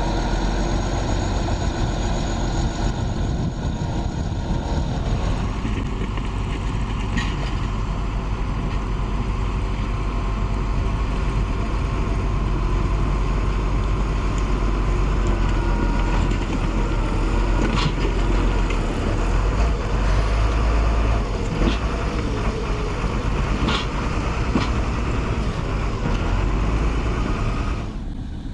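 Heavy diesel construction machinery running steadily, with a few short, sharp knocks scattered through it.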